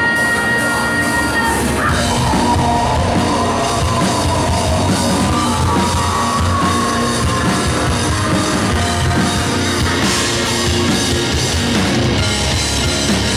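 Live rock band playing loud and steady: electric guitars over a drum kit, in a melodic post-hardcore style.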